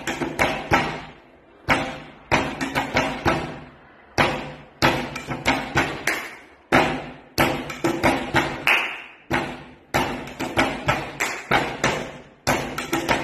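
Body-percussion rhythm on a tabletop in the panaderas style of Castilla y León: a fist thumps the table, a hand slaps it, and hands clap. The strikes come in clusters of five or six, and the pattern repeats about every two and a half seconds.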